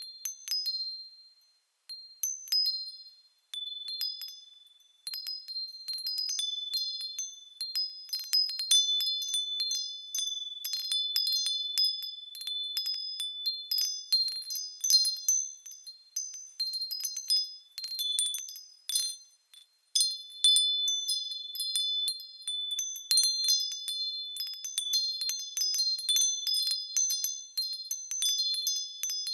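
Small high-pitched bells moving and ringing at random, several notes striking and overlapping as they fade. There are a few short lulls, the longest about two-thirds of the way through.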